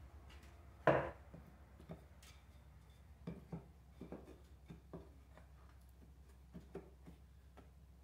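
Wooden pieces knocking and tapping as they are slid into the grooved wooden side rails of a beehive bottom board in an assembly jig: one sharp knock about a second in, then scattered lighter taps, over a faint steady low hum.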